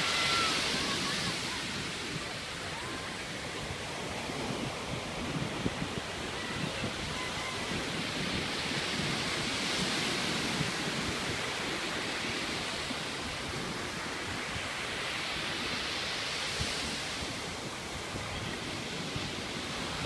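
Ocean surf: waves breaking and washing up the beach in a steady hiss that swells three times as the bigger waves crash, with wind buffeting the microphone underneath.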